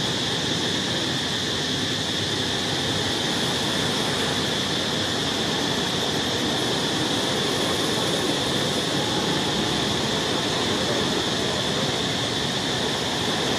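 Steady outdoor background hiss with a constant high-pitched band in it, unchanging.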